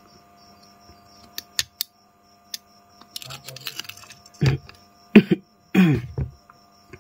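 Small clicks, taps and a scraping rustle of a Realme 5 smartphone's motherboard being handled, unclipped and lifted out of its housing, with a few louder knocks from about four and a half seconds in.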